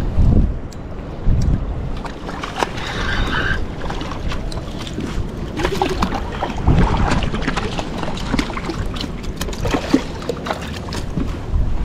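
Wind buffeting the microphone in gusts over a steady rush of outdoor noise, with a few scattered clicks.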